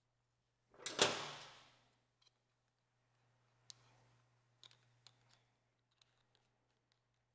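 A sudden loud handling noise about a second in that fades within a second, then a few light, scattered clicks of a metal hose clamp being worked onto a silicone radiator hose.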